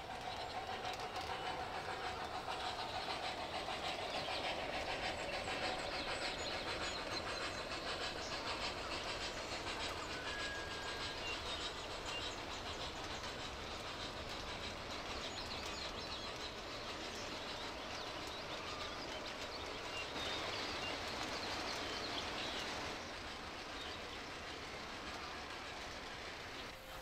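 Train running along the rails: a steady rush with rapid, fine wheel clicks, a little louder in the first few seconds and easing off gently toward the end.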